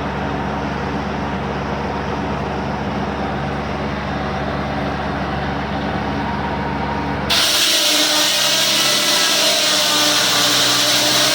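Homemade sawmill's engine running steadily, then about seven seconds in the sound switches abruptly to a louder hiss of the saw blade cutting through the log.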